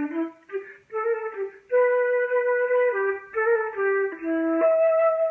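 Silver concert flute played solo: a slow melody of held notes with short breaks between phrases, ending on a long held higher note.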